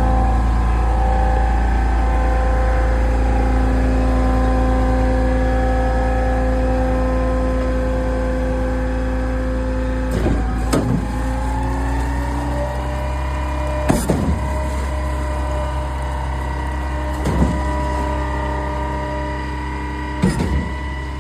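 Zoomlion 47 m truck-mounted concrete pump running steadily while pumping water, its engine held at a constant speed. From about halfway, a sharp clunk comes roughly every three seconds, typical of the pumping cylinders changing stroke.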